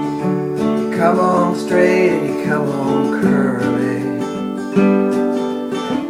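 Acoustic guitar strummed as song accompaniment, with a bending melody line over it from about a second in.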